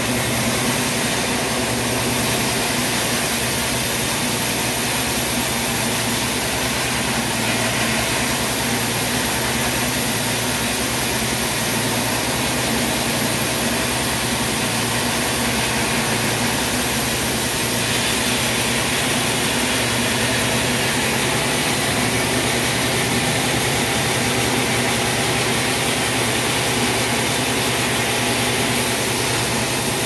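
Large band sawmill running: a steady, even machinery drone from the bandsaw and its drive.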